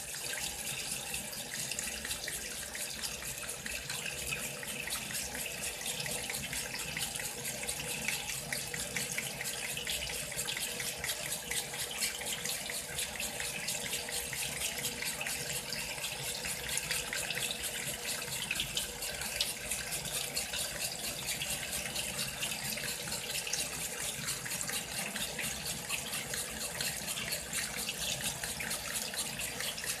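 Water pouring from the inlet of a top-loading washing machine into the drum of laundry: a steady splashing gush as the machine fills with cold water.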